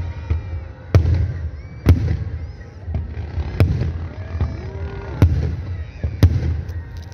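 Fireworks display: aerial shells bursting in five sharp bangs at uneven intervals, over a continuous low rumble.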